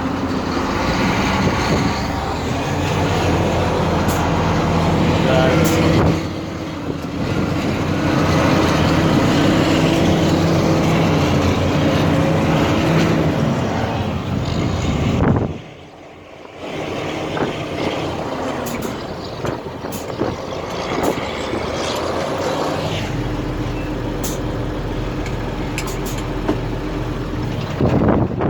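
Heavy truck engine running steadily, with wind buffeting the microphone. The sound drops away for about a second a little past halfway.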